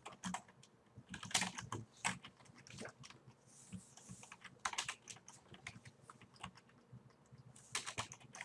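Typing on a computer keyboard: irregular clusters of quiet keystrokes with short pauses between them.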